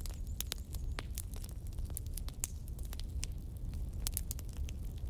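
Wood fire crackling, with many sharp, irregular pops and snaps several times a second over a low steady rumble.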